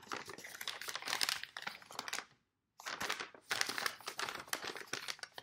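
A thin paper medicine information leaflet being unfolded and handled, crinkling and rustling in two stretches with a short pause a little over two seconds in.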